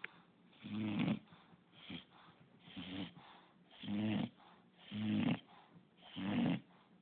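English bulldog snoring: five rough, buzzing snores in a row, about one a second.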